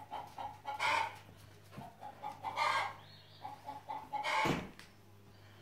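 Domestic hens clucking in short repeated notes, with three louder calls about one, two and a half and four and a half seconds in, over a low steady hum.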